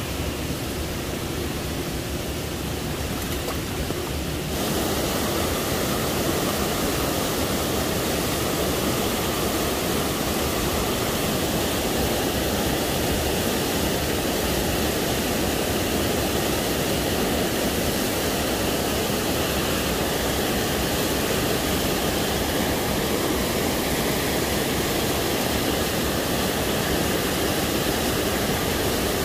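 Rushing water of a small waterfall pouring over rocks into a stream pool: a steady, even rush that gets louder about four seconds in.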